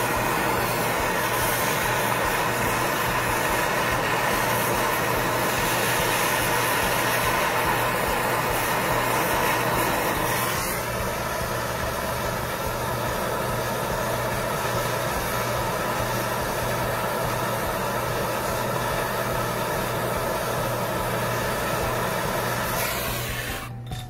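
Handheld gas torch flame running with a steady roar, heating a rusted, seized screw on a sheet-metal air-conditioner outdoor unit cover to free it. The tone shifts slightly about halfway through.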